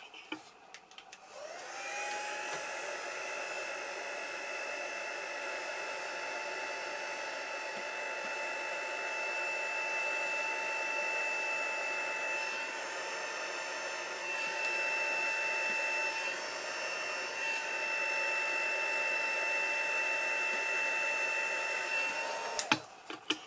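Small electric embossing heat gun blowing steadily, its motor whine rising into place about a second and a half in and holding two steady tones over the rush of air. It stops suddenly near the end, with a few clicks.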